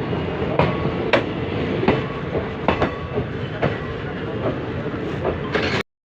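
Wheels of an Indian Railways ICF passenger coach clattering over rail joints as the train runs, a tabla-like clickety-clack of sharp clacks over a steady rumble. The sound cuts off suddenly near the end.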